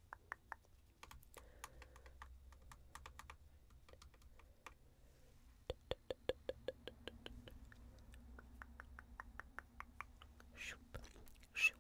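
Light, quick taps of fingertips and long nails on the camera lens: runs of small sharp clicks, densest about six seconds in at several a second, with a brief rustle near the end.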